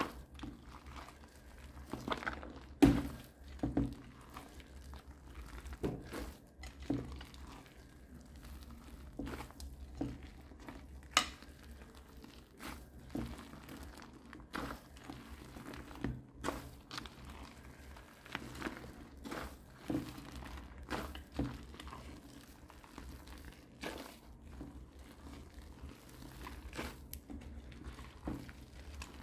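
Hands kneading and squeezing fluffy slime mixed with shaving foam and gel balls: irregular sticky squishes and crackles with sharp snaps, the loudest about three seconds in and again near eleven seconds.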